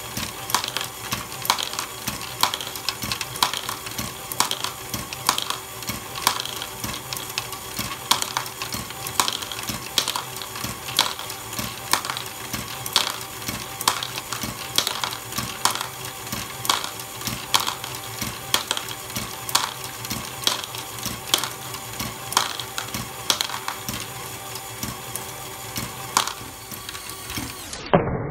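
Lego Technic ball-lifting module running: an electric motor and plastic gears hum steadily while the moving fork arms and small plastic balls clack in a regular rhythm, a sharp click about once a second with lighter rattles between.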